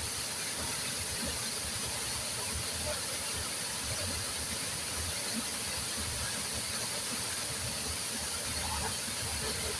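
Waterfall rushing steadily: an even hiss of falling water with no pauses or changes.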